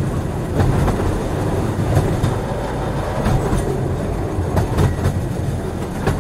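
Train rolling along the track: a steady low rumble with a few clicks of the wheels over rail joints.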